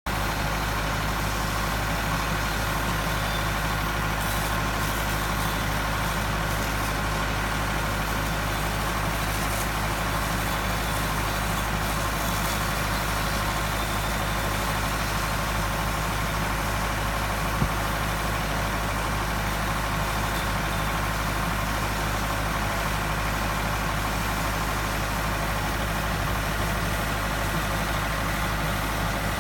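High-pressure water-washing pump running steadily while its jet sprays onto substation insulators, a constant low engine-like drone under an even hiss. There is one brief click about two-thirds of the way through.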